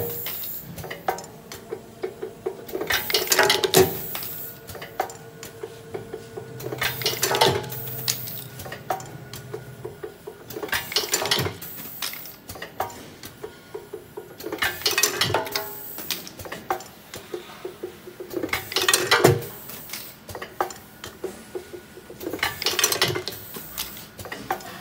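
Automatic plastic water-tap assembly machine running: its rotary indexing table and pneumatic press give a loud clattering burst roughly every four seconds as it cycles. Light, rapid clicking of parts continues between the bursts.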